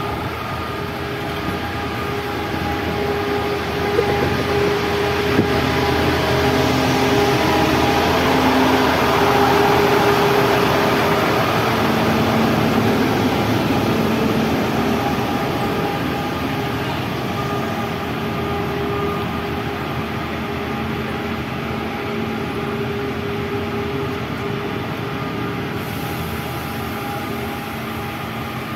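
KRDI diesel railcar set rolling slowly past at close range: a steady noise of wheels on rail and machinery hum. It is loudest about ten seconds in, then eases off, with two sharp knocks around four and five seconds in.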